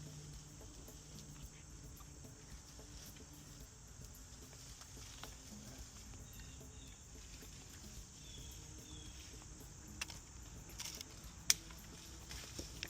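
Steady chirring of crickets and other insects, with a few faint scattered chirps. Near the end come several sharp clicks or snaps, one clearly the loudest.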